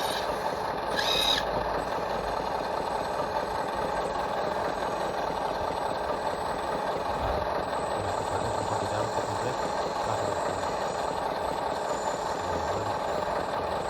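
Radio-controlled model truck's electric drive motor and gearbox running steadily with a whirring mechanical hum, with a brief higher squeal about a second in.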